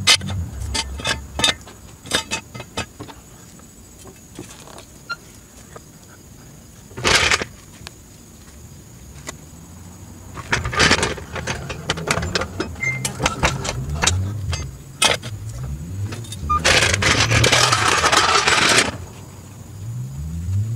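Metal clicks and clanks from a floor jack and jack stands being worked under a car, with a short noisy burst about seven seconds in and a longer rasping noise of about two seconds near the end.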